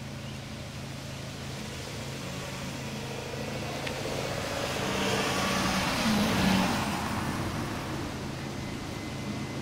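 A car passing by on the road, growing louder to a peak about six seconds in and then fading away, over a steady low hum.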